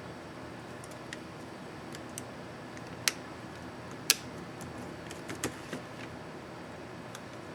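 Small sharp plastic clicks from an ASUS X551C laptop Backspace keycap being fitted and pressed onto its keyboard. The clicks come a few at a time, the loudest about four seconds in, over a steady hiss.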